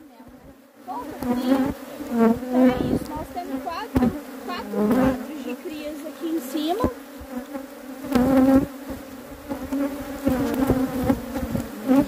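Swarm of honeybees buzzing around an opened beehive. Individual bees fly close past and rise and fall in pitch over a steady hum, with a few knocks.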